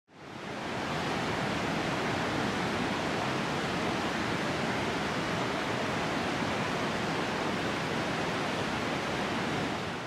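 A steady, even rushing noise with no distinct pitch or events, fading in at the start and fading out just after the end.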